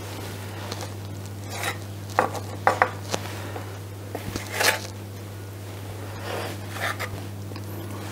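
Slices of potato rösti roll being set down on a slate serving board: a handful of light knocks and scrapes of a utensil and the slices on the slate, over a steady low hum.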